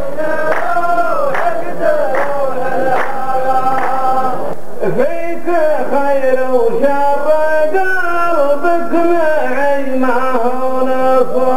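A chorus of men chanting a qalta verse in unison, a slow, held melodic line in deep voices, with hand claps keeping a steady beat for the first few seconds.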